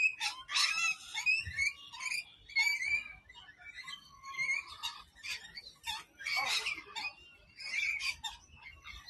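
A flock of rainbow lorikeets chattering and screeching, with many short, shrill calls overlapping in quick irregular bursts.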